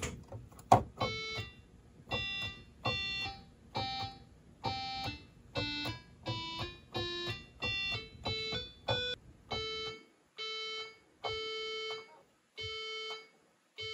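Behringer 2600 analog synthesizer playing a string of short notes through a homemade MIDI-to-CV/gate converter, with the gate logic inverted (S-trig) so each note sounds when a key is released rather than pressed. The notes come in quick succession, mostly on one pitch with a few lower, then slow to single notes of one pitch with gaps between them near the end.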